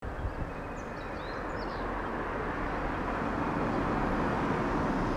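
Outdoor background rumble slowly growing louder, with a few faint bird chirps near the start.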